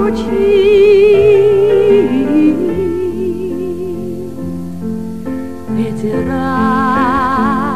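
Music from a slow song: a singing voice holds long notes with wide vibrato over a sustained accompaniment.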